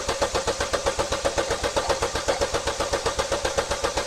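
A 2012 Chevy Cruze's 1.4-litre Ecotec four-cylinder turning over on its starter motor and not starting, because its ignition and fuel injectors are disabled. It makes an even, rhythmic chugging several times a second over a steady whine.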